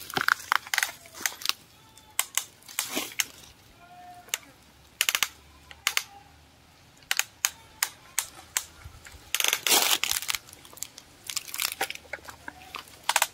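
Small cardboard and foam toy pieces being handled and set in place: irregular clicks, taps and crinkling rustles, with a longer scraping rustle about nine seconds in.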